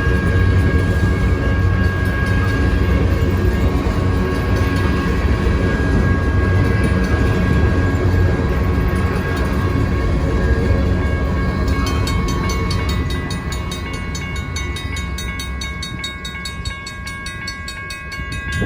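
Loaded grain train's hopper cars rolling past, a heavy rumble of wheels on rail that eases off after about twelve seconds, with two steady high-pitched tones ringing through it.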